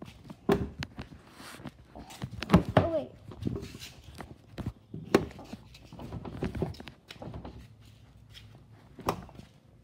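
Footsteps and scattered irregular knocks and thumps of handling noise while walking alongside a car, with a brief voice-like sound about two and a half seconds in.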